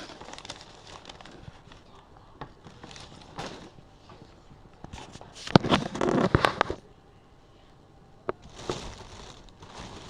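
Packaging being handled and opened: rustling and crinkling with scattered sharp crackles, and a loud burst of dense crackling about halfway through.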